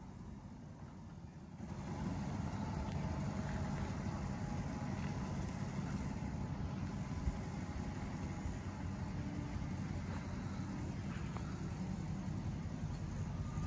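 1966 Ford LTD's V8 engine running as the car drives slowly along the street and turns in, a steady low rumble that gets louder about two seconds in.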